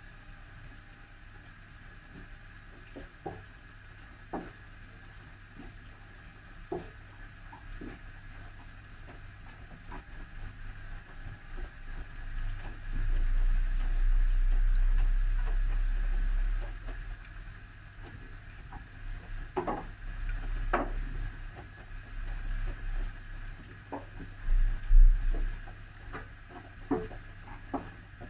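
Whirlpool washing machine on its main wash: the drum turns the wet load with water sloshing and splashing. A little before halfway the motor drives the drum hard for about four seconds with a loud low rumble, and does so again in shorter spells later.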